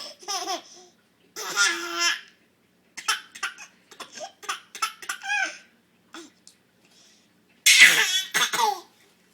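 A young child laughing in repeated bursts, the loudest a little before the end, amid a woman's short, sharp hiccups.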